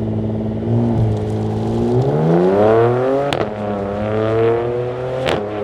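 Porsche Macan Turbo's twin-turbo V6 through a Soul resonated muffler bypass exhaust, accelerating: the engine note climbs steeply about two seconds in. A sharp crack and a drop in pitch mark an upshift of the PDK dual-clutch gearbox, and the note climbs again before another crack near the end.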